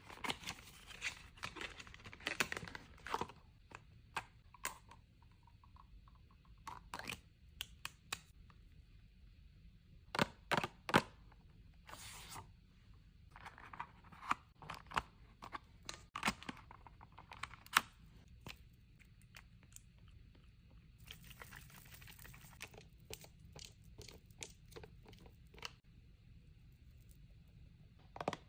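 Makeup packaging being unboxed: wrapping crinkling and tearing in a few short spells, among many sharp clicks and taps.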